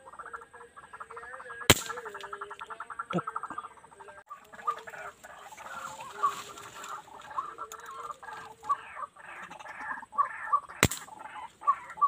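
White-breasted waterhen calling: a fast chattering trill for the first three seconds or so, then short calls repeated once or twice a second. Two sharp clicks cut in, about two seconds in and near the end.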